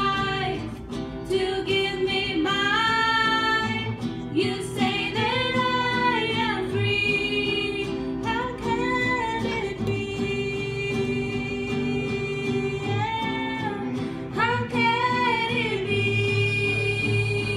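Two women singing a song together, accompanied by an acoustic guitar.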